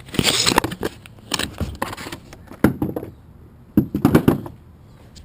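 Boxed reciprocating saw being unpacked: cardboard box and packaging rustling, scraping and knocking in four short bursts.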